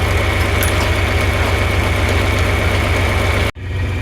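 John Deere 4020 tractor's six-cylinder engine running steadily, powering a post hole digger. The sound cuts out for an instant about three and a half seconds in, then carries on.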